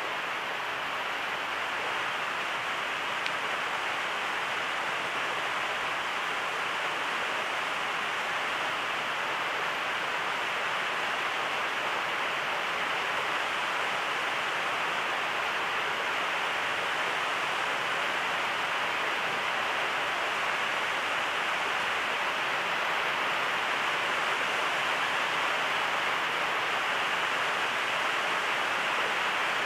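Steady hiss of background noise, unchanging, with no other sounds.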